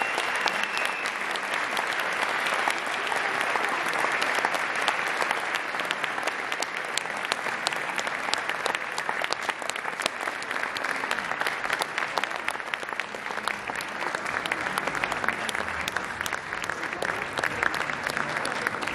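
Audience applauding after a performance: many hands clapping steadily in a reverberant concert hall.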